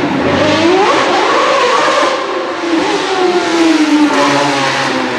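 Sauber C32 Formula 1 car's Ferrari Type 056 2.4-litre naturally aspirated V8 running through a slow corner: the revs climb about half a second in, fall away over the next couple of seconds, then pick up again near the end.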